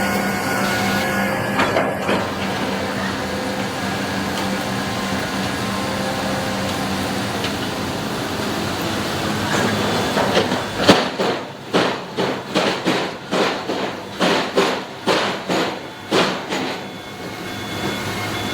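Sany SR150C rotary drilling rig running steadily, then a rapid string of about a dozen sharp knocks from the rig, roughly two a second, before the steady running resumes.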